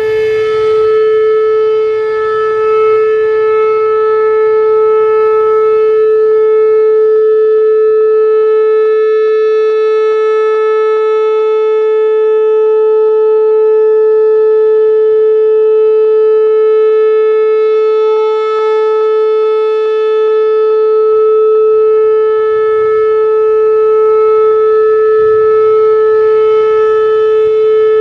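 Whelen WPS-4008 rotating electronic siren sounding a steady, unbroken Alert tone, its loudness dipping a little now and then as the head turns. A rapid crackle of popping runs through the tone from the siren's broken drivers.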